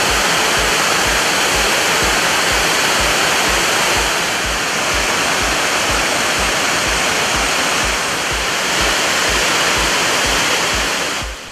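The roar of the Thirparappu waterfall in flood: a heavy, steady rush of floodwater pouring over the falls and weir that cuts off near the end. A news music bed's low beat, about twice a second, runs underneath.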